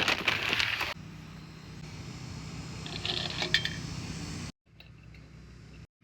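Crunching, crinkling handling noise for about the first second, then a steady low hum with a few sharp clicks and clinks about three seconds in.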